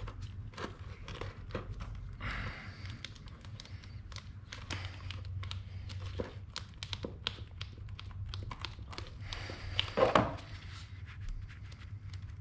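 Gloved hands handling a plastic scooter fuel tank and its hose: scattered light clicks, taps and crinkling rustles, with a louder burst of rustling and knocking about ten seconds in.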